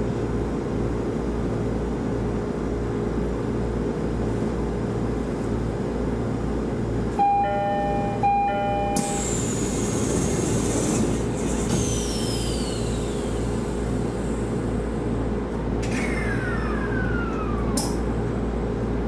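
Shinano Railway SR1-series electric train running between stations: steady running noise with a low rhythmic pulse from the wheels on the rails, about twice a second. Two short steady tones sound about seven and eight seconds in, and falling whistling tones follow in the second half.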